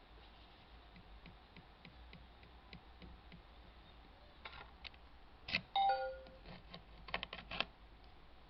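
A USB flash drive clicking as it is handled and pushed into a port, with a short two-note computer chime falling in pitch about six seconds in: the laptop's signal that a USB device was connected or disconnected. A few more sharp clicks follow near the end.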